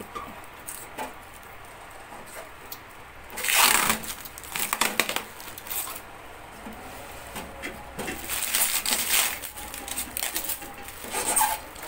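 Blue plastic protective film being peeled off a stainless-steel gas stove and crumpled. It comes in several crinkling bursts, the loudest about three and a half seconds in.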